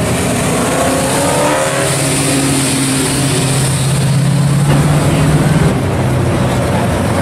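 A 1969 Chevrolet Camaro's engine with a loud exhaust, accelerating past as its pitch rises steadily. Nearly six seconds in, the sound changes abruptly to another classic car's engine at a lower, steady pitch.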